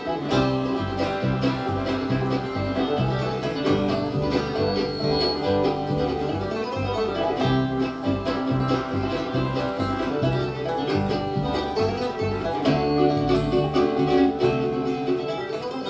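Live bluegrass band playing an instrumental intro: banjo and guitar picking over a steady walking bass, with a bowed string such as fiddle faintly in the mix.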